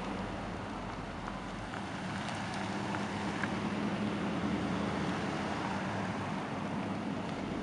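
Nissan Titan pickups' 5.6-litre V8 engines running as the trucks drive slowly past one after another, a steady low engine note over an even background hiss.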